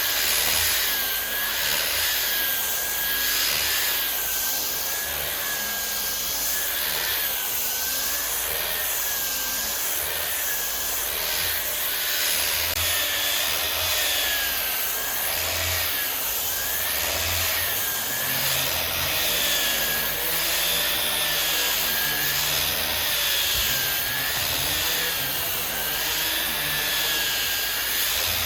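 Electric power tool working wood, its motor running steadily with a whine that dips and recovers in pitch over and over as the tool is pressed into the wood.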